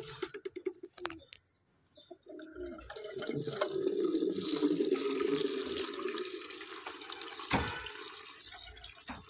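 Water from a tap running into a plastic bucket, starting about two and a half seconds in, with pigeons cooing. There is a single knock about seven and a half seconds in.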